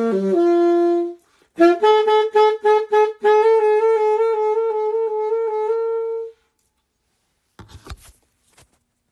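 Saxophone playing a melody. A phrase ends about a second in, then a run of short repeated notes leads into a long held note that stops about six seconds in. A few short clicks follow near the end.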